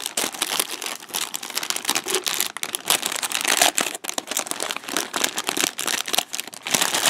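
Clear plastic bag crinkling as fingers pick it open and pull it off a plastic model kit runner, a dense, irregular run of crackles.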